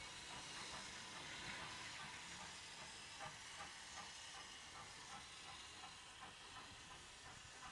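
Faint, distant LMS Fowler Class 3F 'Jinty' 0-6-0T steam tank locomotive working away: a steady hiss with faint regular beats, about three a second, slowly growing fainter.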